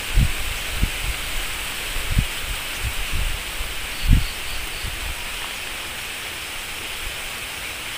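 A person chewing with the mouth closed: a few short, dull low thumps in the first half, over a steady outdoor hiss.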